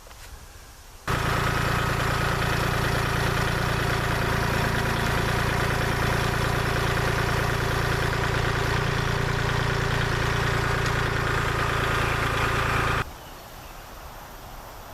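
Kubota backhoe's diesel engine running steadily at an even pitch. It starts suddenly about a second in and cuts off just as suddenly near the end.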